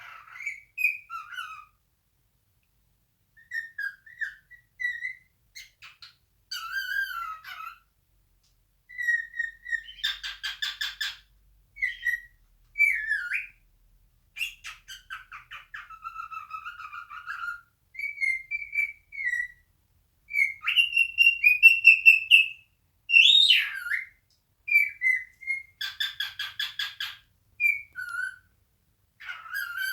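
Male cockatiel singing its natural song: a string of short whistled phrases that glide up and down, with brief pauses between them and, twice, a harsher buzzy call.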